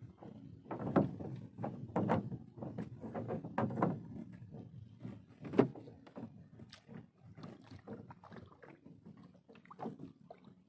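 A wooden paddle being handled and knocking against the hull of a small wooden rowboat: a series of irregular hollow thumps, loudest in the first few seconds, with a single sharp knock about five and a half seconds in.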